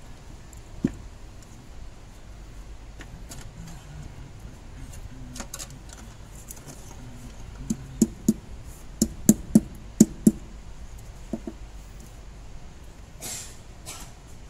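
Sharp metallic knocks and clinks of hand work on a Toyota Hilux engine's valve cover and its bolts, a few scattered at first and then a quick run of about seven in the middle.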